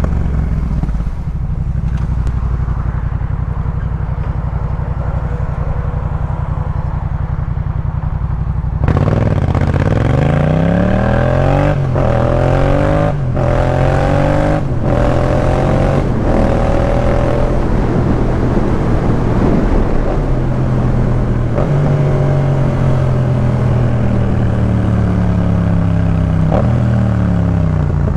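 Yamaha MT-07's parallel-twin engine through a Jeskap K4 full exhaust: a steady engine note for about nine seconds, then the revs climb several times with short breaks in the sound between climbs, as in quick gear changes, before the revs rise and fall more gently and ease off.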